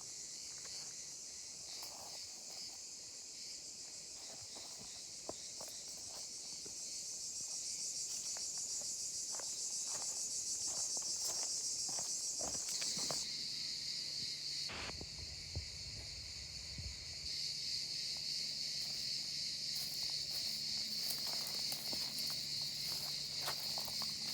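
Steady high-pitched shrill chorus of insects, dropping lower in pitch about halfway through, with scattered footsteps and small knocks.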